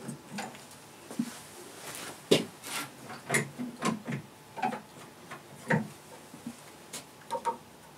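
Scattered light clicks and knocks from handling a metal bowstring-making jig as its screws are undone and its parts loosened.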